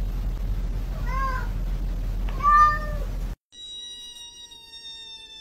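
A cat meows twice, briefly, over a steady low hum. Then a kitten gives one long, high meow that holds steady and dips slightly at the end.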